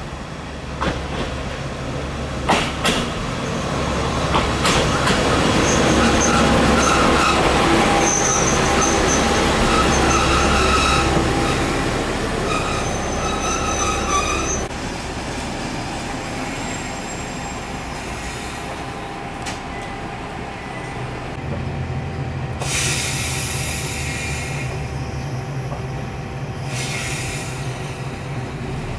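A single-car diesel railcar runs close past the platform: engine rumble, a few clicks of the wheels over the rail in the first seconds, and high wheel squeal from about 8 to 14 seconds in. Later a diesel railcar stands at the platform with its engine idling, and two bursts of hiss come near the end.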